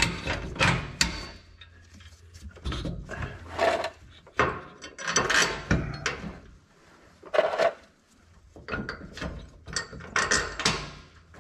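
Short, irregular bouts of metallic clicking and scraping from hand tools working the bolts of an RV's rear air-spring bracket, with pauses between the bouts.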